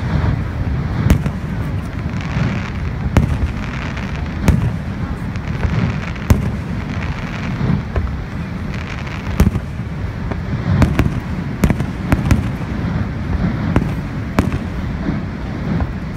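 Aerial fireworks shells bursting one after another, sharp bangs every second or two, over a steady low rumble.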